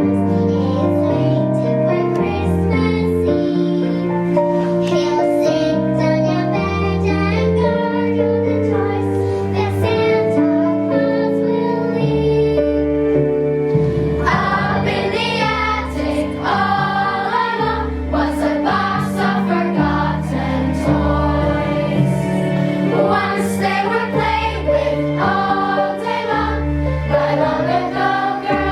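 Children singing together with instrumental accompaniment; the voices come in strongly about halfway through, over a steady bass and chords.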